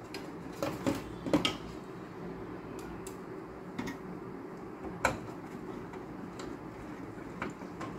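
Light clicks and taps of hard parts being handled in an open metal desktop computer case as the motherboard is fitted. Several come close together in the first second and a half, then single clicks about once a second.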